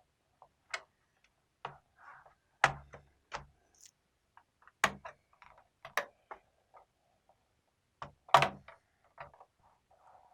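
Sharp plastic clicks and snaps from a laptop's bottom case being pried apart and handled, irregular, with four louder snaps about 2.5, 5, 6 and 8.5 seconds in among lighter ticks and taps.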